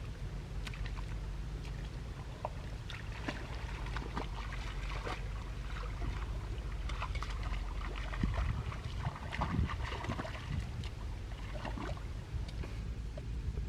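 Shallow creek water sloshing and splashing irregularly, with many small splashes and clicks, over a steady low rumble of wind on the microphone.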